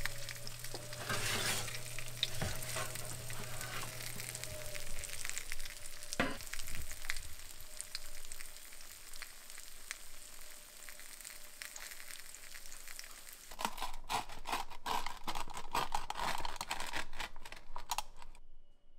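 Food sizzling and crackling in a hot pan, with a single knock about six seconds in. The crackling grows denser and busier for the last few seconds, then cuts off suddenly just before the end.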